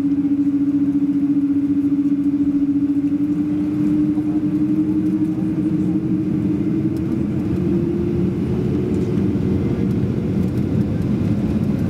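Boeing 777-200 jet engines heard from inside the cabin over the wing while the aircraft moves on the ground: a steady drone with a strong hum whose pitch rises slowly from about three seconds in.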